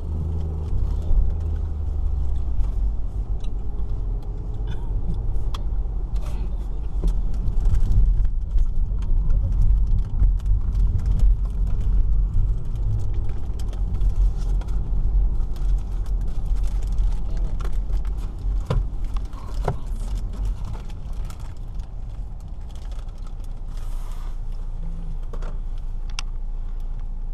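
Cabin noise of a 2018 Kia Forte S's four-cylinder car on the move: a steady low rumble of engine and tyres on the road, with scattered small clicks and rattles.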